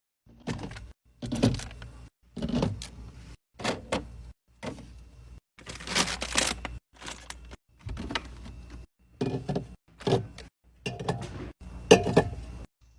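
Drinks and snacks being handled and set into a mini fridge: a run of short, abruptly cut clips of clunks, knocks and rattles, about a dozen of them, one after another.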